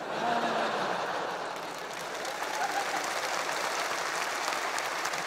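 Audience applauding and laughing after a joke: a steady wash of clapping with laughter over it.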